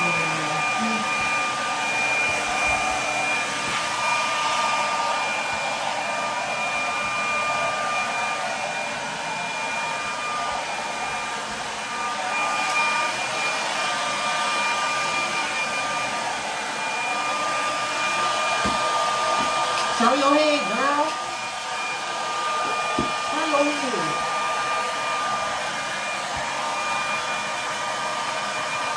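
Handheld hair dryer blowing steadily, with a high motor whine over the rush of air. A couple of short wavering sounds come through about two-thirds of the way in.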